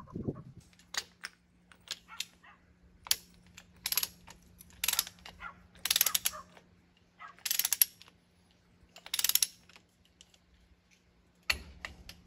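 Ratchet wrench clicking in a series of short bursts as it is swung back and forth on a hex plug of a John Deere hydraulic pump, over a steady low hum.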